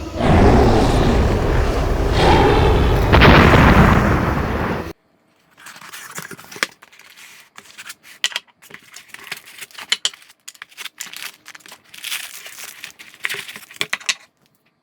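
A loud, dense rushing blast with a rising sweep in it, lasting about five seconds and cutting off abruptly. It is followed by a run of short clicks and rustles from a product box and its packaging being handled.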